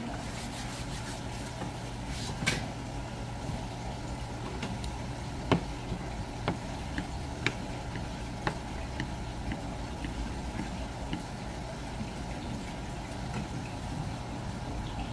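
Knife taps on a cutting board while fish is sliced for sashimi: sharp clicks, a few louder ones, then a run of about one a second, over a steady low hum.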